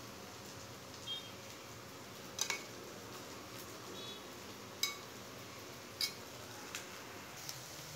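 Steel spoon clinking and scraping against a stainless-steel colander while stirring soaked kurdai: about six light, separate clinks, a couple with a brief metallic ring.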